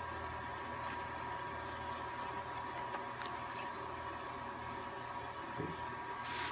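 Light paper handling: a sheet of cover paper faintly rustling and tapping as it is laid and smoothed by hand over a heat-transfer vinyl design on a T-shirt, with a brief louder rustle near the end. Under it runs a steady electrical hum with a thin high whine.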